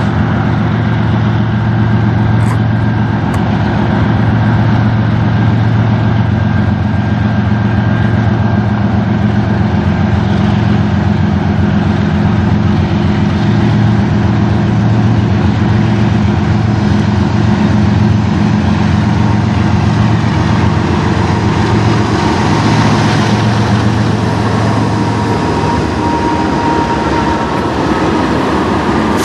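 Three CN diesel freight locomotives approaching and passing close by: a loud, steady low engine drone with the rumble of wheels on rail. The engine drone eases near the end as the locomotives draw alongside.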